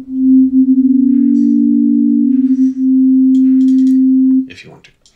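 A Bitwig Poly Grid sine oscillator sounding one pure, steady, loud tone. From about one second in to nearly three seconds in it wavers and beats as its left–right stereo pitch difference is changed, then it holds steady and stops suddenly about four and a half seconds in.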